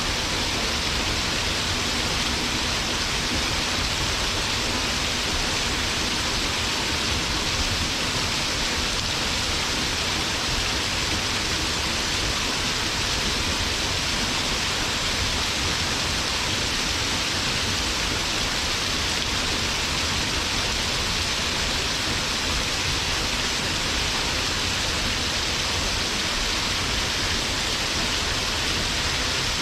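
Waterfall pouring steadily, a constant rushing hiss of falling water with a low rumble underneath.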